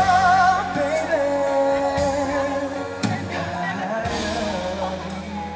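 Male singer holding long notes with vibrato into a handheld microphone over a backing track, played live through the concert PA. The music gradually grows quieter toward the end.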